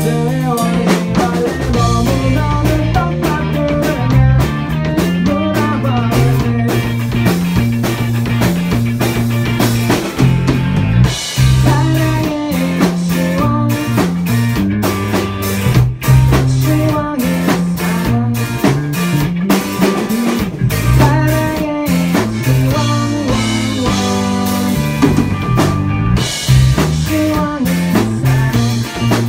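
Live rock band playing: two electric guitars, bass guitar and a drum kit keep a steady beat, with a male lead vocal.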